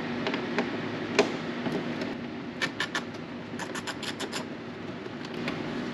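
Sharp metallic clicks and ticks from a hand tool working the wheel-liner fasteners: a few single clicks, then two quick runs of several clicks around the middle, over a steady low hum.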